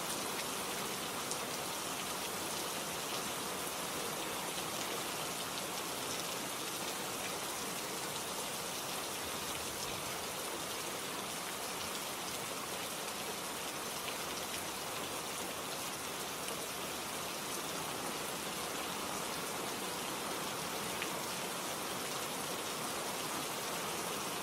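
Steady rain falling: an even hiss with many small scattered drop ticks.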